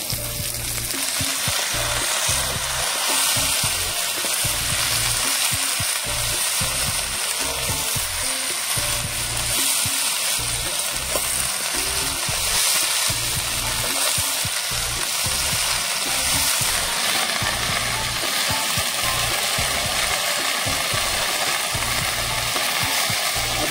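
Pork and broadleaf plantain leaves frying in a wok, sizzling steadily in the pork's own fat while a metal spatula stirs them.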